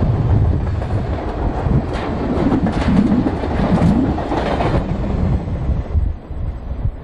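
Canadian Pacific freight train's cars rolling past close by: a steady rumble of steel wheels with repeated clicks over the rail joints. The sound dies down in the last second or two as the caboose at the tail end goes by.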